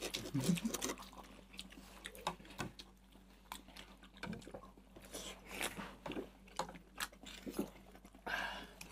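People eating noodles at close range: chewing, slurping and sipping, with scattered light clicks of forks and spoons against bowls.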